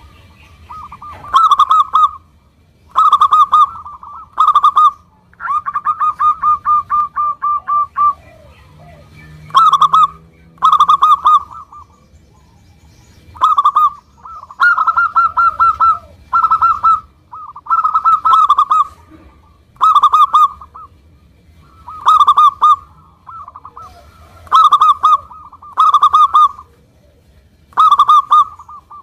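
Local zebra dove (perkutut) singing: repeated clusters of short, clipped coos, with one fast rolling run of notes about six seconds in.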